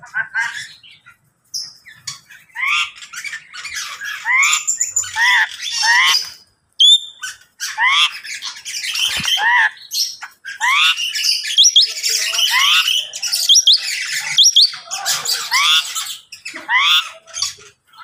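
Caged birds in a mixed aviary calling: a busy run of squawks and chirps, many of them short rising sweeps, with a few thin high whistles about halfway through.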